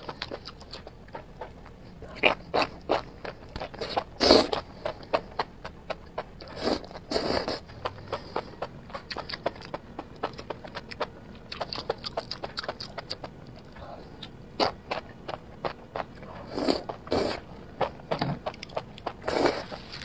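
Chewing and slurping of enoki mushrooms in spicy chilli sauce: many quick wet mouth clicks and smacks, with several louder bursts spread through.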